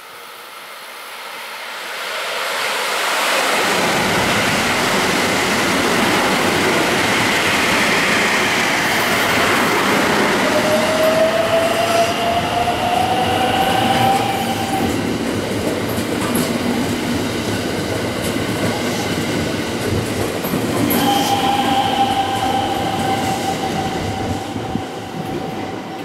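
Electric commuter train pulling out and accelerating past along the platform, its wheels rumbling and clattering over the rails. About ten seconds in, a high whine rises in pitch, and near the end another high tone holds steady.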